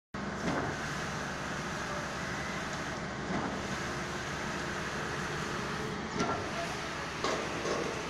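A 30 m³/h concrete mixer pump running steadily, with a few sharp knocks.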